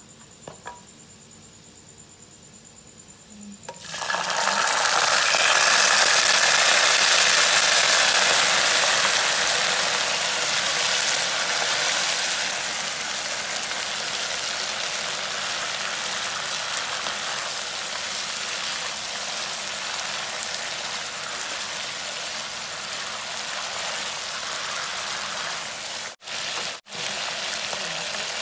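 Faint frying of garlic in oil in a wok, then about four seconds in a loud burst of sizzling as canned fish and its tomato sauce hit the hot oil. The sizzle is loudest for the next several seconds, then settles into a steady bubbling sizzle, cutting out twice for an instant near the end.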